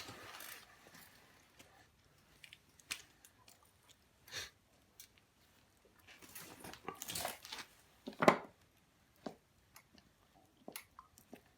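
Hands handling things at close range: scattered light clicks and rustling, with a louder knock about eight seconds in.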